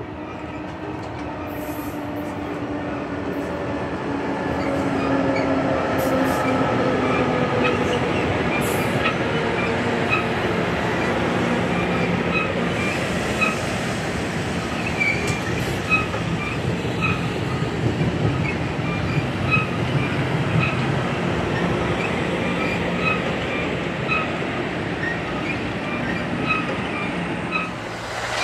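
Amtrak Pacific Surfliner passenger train approaching and passing close by, growing louder over the first several seconds. Its drone slides down in pitch as it comes by. Then the double-deck cars roll past with steady rumble and regular clicking of wheels over rail joints.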